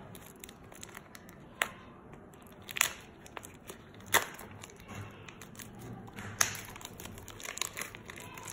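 Clear plastic shrink wrap being peeled and torn off a cardboard box: crinkling, with several sharp crackles as the film pulls free.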